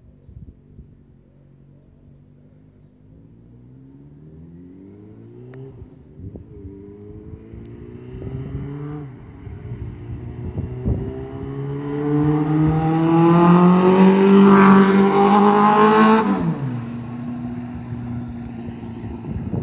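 1999 Yamaha YZF-R6's inline-four engine accelerating hard up the road through several gears. Each rise in pitch is broken by a short dip at the upshift, and the engine grows louder as the bike approaches. Near the end it passes close by with a sudden drop in pitch, then fades away.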